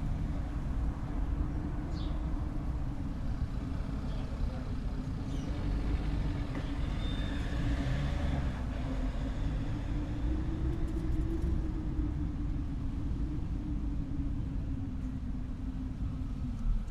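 A low, steady rumbling noise with a few faint high chirps over it, cutting off suddenly at the end.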